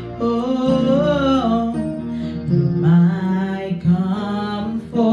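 Worship song being sung: a voice holding long, bending notes over acoustic guitar accompaniment.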